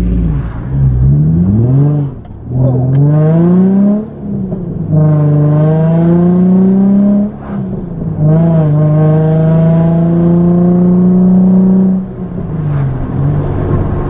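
Nissan 350Z's 3.5-litre VQ35DE V6 accelerating through the gears of a six-speed manual transmission, heard from inside the cabin. Engine pitch climbs, then drops sharply at each upshift, several times, with a longer steady pull in the higher gears.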